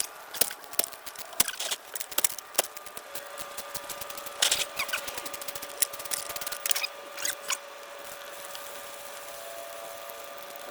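Clicks and taps of the plastic oil filter housing and filter being handled and fished from the drain pan during an oil change, sharp and irregular, thinning out after about five seconds; a faint steady hum starts about three seconds in.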